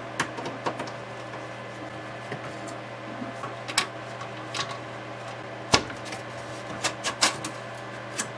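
Scattered clicks and knocks from a screwdriver, screws and a metal rack-synthesizer chassis being handled while the front-panel screws are taken out, with one louder, deeper thump a little past halfway. A steady low hum runs underneath.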